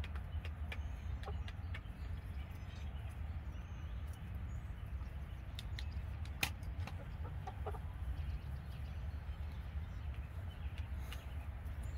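Chickens clucking a few times, faint and short, over a steady low rumble, with scattered light clicks and one sharp tap about six and a half seconds in.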